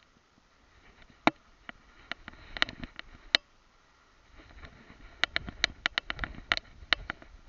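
Scattered clicks and knocks with rustling from a camera strapped to a dog as it moves through long grass: a few sharp clicks at first, then busier clicking and brushing from about halfway through.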